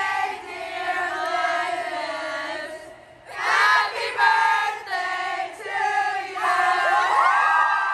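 A group of female voices singing together, holding and sliding between notes, with a short break about three seconds in.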